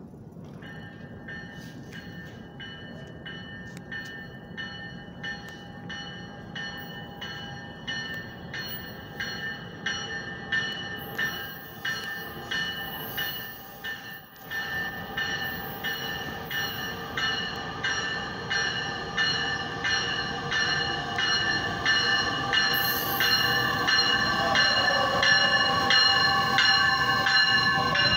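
Metra Electric Highliner electric train approaching and pulling in alongside the platform, its bell ringing over and over, about two to three strokes a second, over a low rumble of wheels on rail. The sound grows steadily louder as the train draws near.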